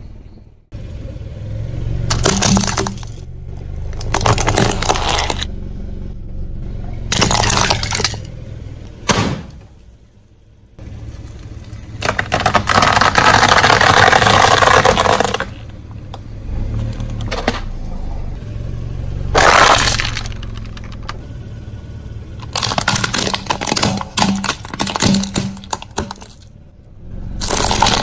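Car tyre rolling over and crushing objects one after another, giving a series of crunching and cracking spells over the car's low steady running hum. About halfway through there is a longer stretch of dense crackling as a paper confetti tube is flattened.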